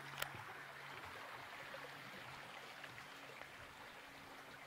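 Faint, steady rush of a shallow stream running over stones, with a single sharp click near the start.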